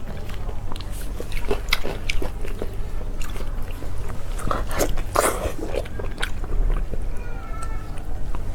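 A person eating close to the microphone: biting and chewing, with many small wet clicks and one louder noisy burst about five seconds in.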